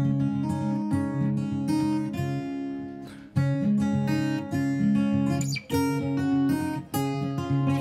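Background music: an acoustic guitar piece with strummed chords.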